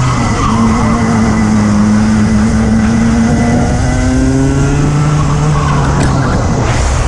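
Racing kart engine running hard at race pace, heard close up from the kart itself: its note steps up about half a second in, holds, shifts lower about four seconds in and dips near the end as the kart works through the corners, over a steady noisy rush.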